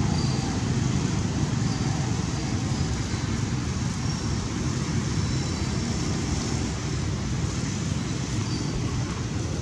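Steady low rumbling outdoor noise, with no distinct events.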